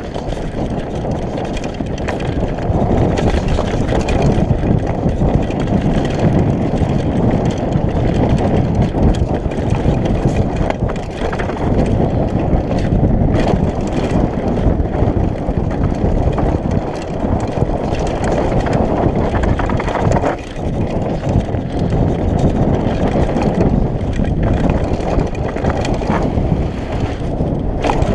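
Mountain bike riding fast down a dirt forest trail: a steady loud rumble of knobby tyres on the ground mixed with wind buffeting the camera microphone, with occasional sharp knocks as the bike goes over roots and rocks.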